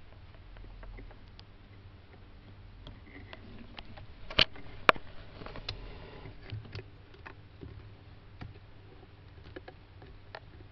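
Hermann tortoise clambering over a bridge of wooden sticks: scattered small clicks and scrapes of claws and shell on the wood, with two sharp knocks about half a second apart a little before the middle. A faint steady low hum sits underneath.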